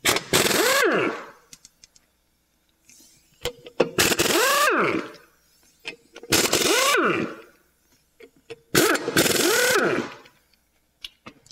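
Pneumatic impact wrench hammering lug nuts loose from a wheel in four bursts of a second or so each, its motor whine rising and falling with each pull of the trigger, with small clicks between bursts. The nuts have been on a long time, hence the impact wrench.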